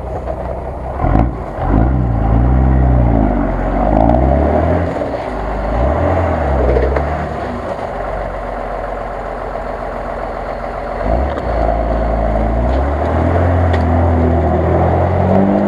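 Jeep Cherokee's engine revving hard in repeated bursts, its pitch rising and falling, as the truck struggles to claw through deep mud; it settles lower for a few seconds mid-way, then revs up again about eleven seconds in.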